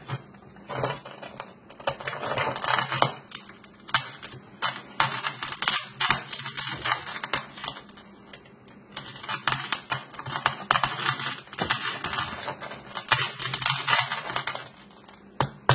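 A knife scraping and prying at hardened foam around an embedded phone: an irregular run of scratchy clicks and crunches, several a second.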